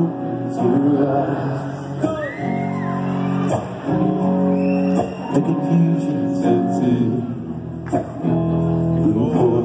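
A rock band playing live in a large hall, heard from the audience: electric guitars, bass and drums under a male lead vocal, with voices from the crowd.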